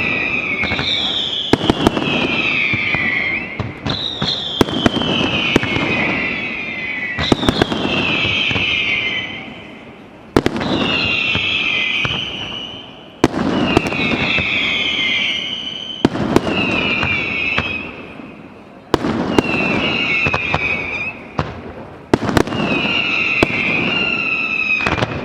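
Fireworks going off in a regular sequence: sharp bangs, each followed by a whistle that falls in pitch for about two seconds, repeating roughly every three seconds.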